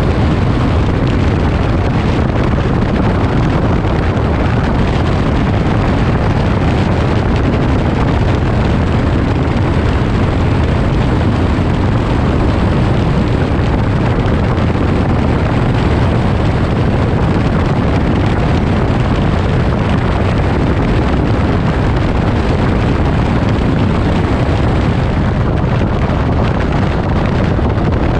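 Light aircraft's engine and rushing air heard from on board in flight: a loud, steady, even noise, heaviest in the low range.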